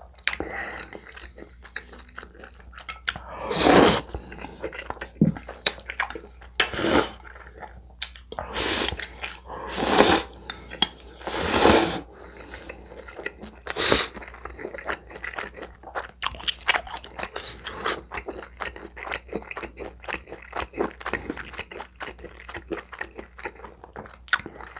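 A person eating spicy tomato-soup spaghetti close to the microphone: several loud slurps of noodles in the first half, then steady wet chewing with many small mouth clicks.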